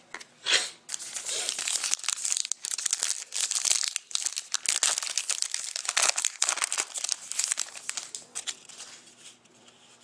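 Wrapper of a trading card pack being torn open and crinkled by hand: dense crackling throughout, with a sharp rip about half a second in.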